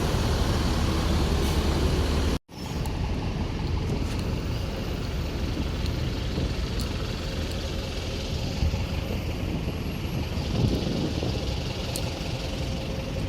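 Steady road traffic noise, a continuous rumble of passing vehicles. It cuts off abruptly for an instant about two and a half seconds in, then carries on at a similar level.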